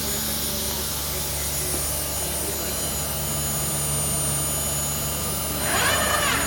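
Comeva CNC gantry router running with a steady hum and a high, thin spindle whine. Near the end comes a brief louder tone that rises and falls.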